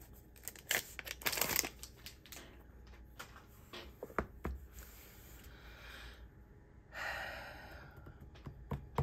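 Clear plastic sleeve crinkling as it is slid off a hardcover planner, then scattered soft taps and clicks as the book is handled and pressed down on a desk, with another brief rustle about seven seconds in.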